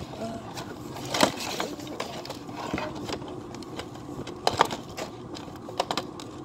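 Clear plastic doll packaging crinkling and clicking as a doll is handled and worked loose from its tray, with a few sharper clicks, the loudest a little after a second in and again after four seconds.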